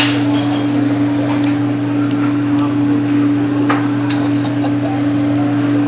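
Hibachi grill table: a steady low hum with an even hiss under it, a sharp metal clink at the very start and a few lighter clicks and taps scattered after it.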